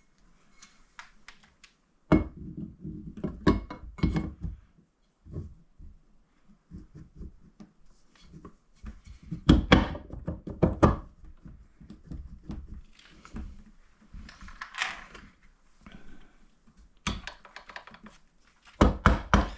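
Irregular clunks, knocks and clicks of engine and transmission parts being handled and fitted during bench assembly of a Polaris Sportsman 90's engine, with a few short scrapes between them.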